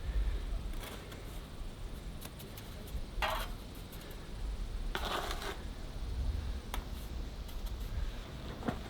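Bricklaying: a trowel scraping mortar and clinking on brick, two short scrapes about three and five seconds in among light clicks, over a low steady rumble.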